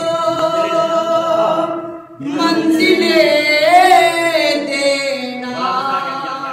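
A man singing devotional Urdu verse unaccompanied into a microphone. He holds a long note, pauses briefly about two seconds in, then sings a note that wavers up and down before sliding lower.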